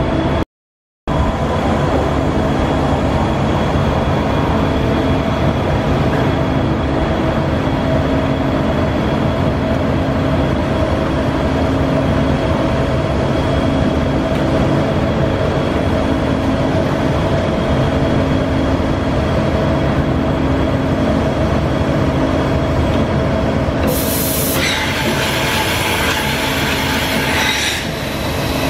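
Kuraki AKB-13 CNC horizontal boring mill running, a steady mechanical hum with a thin whine over it. A loud hiss lasts about three and a half seconds near the end, as the automatic tool changer's arm comes to the spindle.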